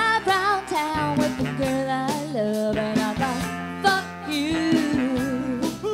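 Music: a pop-soul song with a sung melody over guitar and a steady beat.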